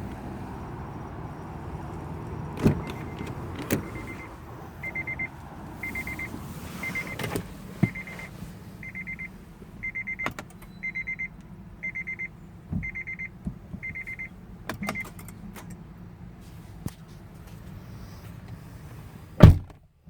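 Electronic warning chime of a 2014 Honda Odyssey beeping about once a second, roughly a dozen times, among scattered clicks and clunks. A single loud thump comes near the end.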